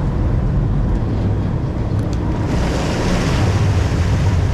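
Wind buffeting the microphone and sea water washing against a boat, over a steady low rumble. A brighter rush of water hiss comes in about halfway through.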